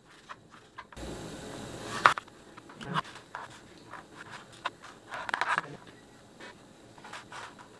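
Kitchen knife chopping tomatoes on a cutting board: an irregular run of knocks as the blade strikes the board, the sharpest about two seconds in.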